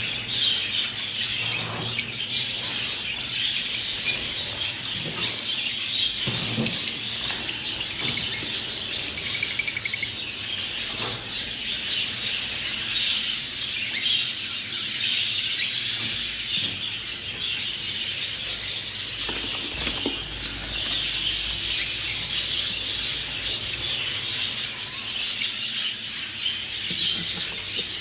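Budgerigars chattering and chirping steadily, a dense, continuous warble of many small calls, with a quick run of rapid chatter about nine seconds in.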